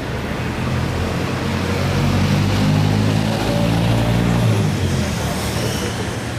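A motor vehicle's engine running close by, a low hum that swells in the middle and drops away about four and a half seconds in, over street background noise.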